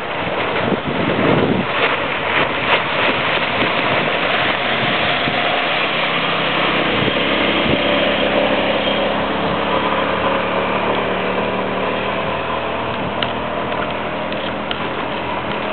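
Suzuki 25 hp V-twin outboard on a small planing boat running at speed past the microphone, its engine note clearest about halfway through as the boat comes closest. Wind buffets the microphone and water washes from the wake throughout.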